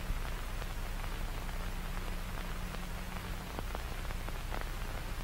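Steady static-like hiss over a low hum, with scattered faint crackles.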